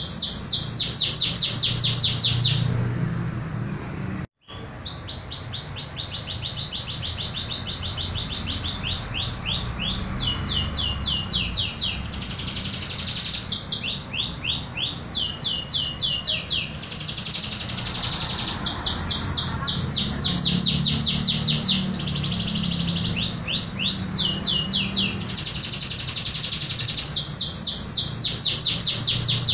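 Domestic canary of the Indonesian local strain singing its own natural song, without imitated fills. Phrases of two to three seconds of rapid repeated sweeping notes alternate with held buzzy notes. The song breaks off briefly about four seconds in.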